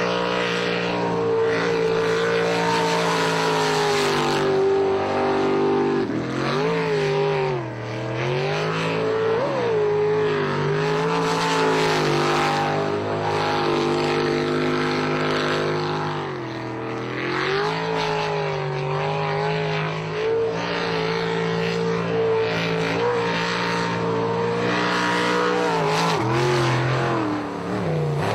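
Racing speedboat engine running hard at high revs, a steady drone whose pitch drops and climbs back several times as the throttle eases and opens again.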